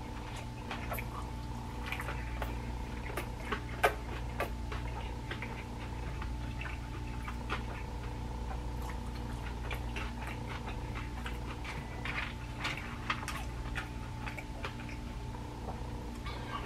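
A person eating crunchy food close to the microphone: scattered small crunches, clicks and mouth sounds of chewing, over a steady electrical hum in the room.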